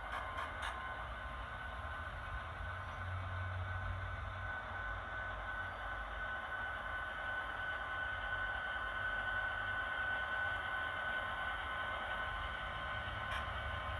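HO-scale Kato SD70MAC model diesel locomotives running on layout track: a steady high electric-motor whine over a low wheel-and-track rumble, louder toward the middle. A few light clicks right at the start and one near the end.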